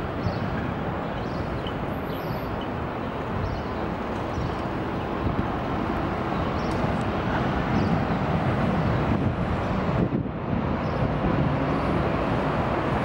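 City street ambience: steady traffic noise from passing cars, growing a little louder toward the end.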